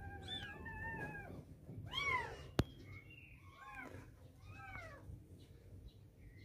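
Young kittens mewing over and over in short, rising-and-falling cries, with one sharp knock a little past halfway.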